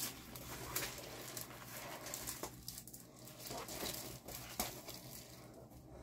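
Soft rustling and crinkling of a rolled diamond-painting canvas and its clear plastic cover film being unrolled and handled, with a few sharper crackles.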